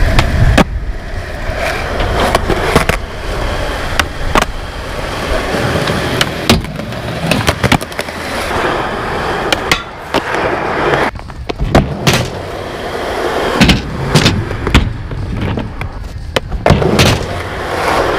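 Chip brand skateboard rolling over skatepark concrete and asphalt: a steady rumble of the wheels broken many times by sharp clacks of tail pops and landings. Partway through, the trucks grind along the edge of a low metal-sided box.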